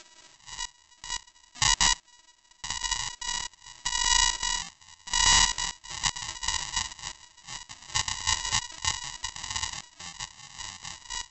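Irregular bursts of harsh, distorted noise on the phone's microphone, coming and going every second or so, over a faint steady electronic buzz.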